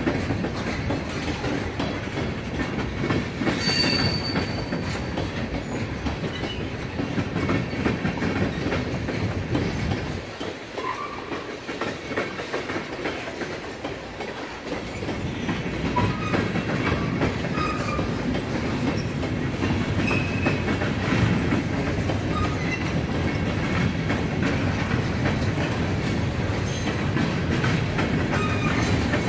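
Freight train of tank cars and covered steel-coil cars rolling past, its wheels clicking over rail joints. A brief high wheel squeal comes about four seconds in, and the low rumble drops for a few seconds in the middle.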